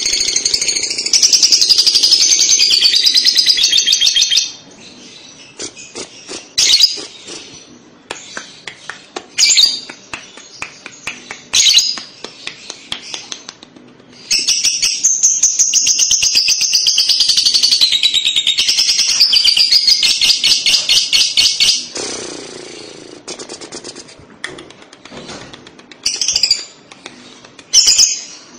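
Young lovebird giving its kekek: long bouts of rapid, high-pitched stuttering chatter with short bursts of chirps between. One bout lasts about four seconds at the start, and another of about eight seconds begins around the middle.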